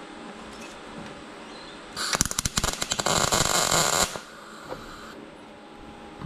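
MIG welder tack-welding thin sheet-steel infill plates onto a truck firewall: about two seconds in, the arc crackles loudly and fast for roughly two seconds, then cuts off abruptly.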